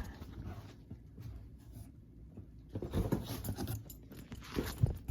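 Packaging being handled and opened by hand: soft rustling at first, then from about halfway a run of louder rustles, scrapes and clicks, with one sharp knock near the end.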